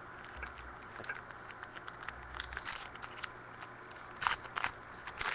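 Crinkling and crackling of a trading-card pack wrapper being handled and torn open, in irregular bursts that grow louder around four seconds in and again near the end.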